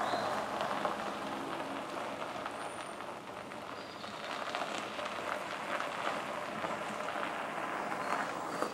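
Golf cart tyres crunching and crackling over loose gravel as the cart drives away.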